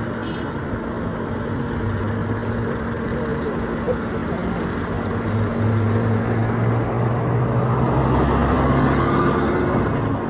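Road traffic passing: a steady hum of engines and tyres, with a heavier engine's low hum rising from about five seconds in and loudest near eight seconds.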